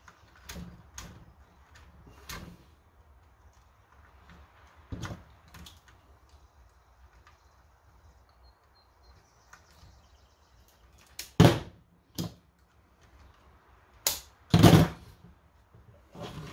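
Scattered small clicks and knocks of crimping pliers, wire and plastic blaster parts being handled on a tabletop, with two louder knocks in the last third.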